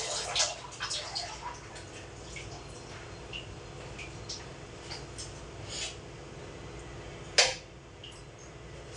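Water splashing and small clatters from household cleaning out of sight, dying down after about a second and a half, then faint scattered ticks over a steady low hum. A single sharp knock comes about seven and a half seconds in.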